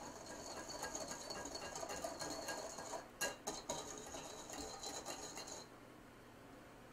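Wire whisk beating an oil-and-balsamic-vinegar glaze in a small glass bowl: a rapid, even clicking of the wires against the glass, with a couple of louder taps about three seconds in. The whisking stops a little before the end.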